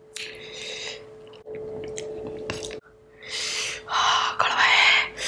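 A person hissing air sharply in and out through an open mouth, the breathing of someone burning from very spicy food. It is loudest from about three seconds in.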